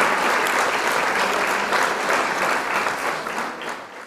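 A crowd applauding, a dense patter of many hands clapping, which fades out over the last second.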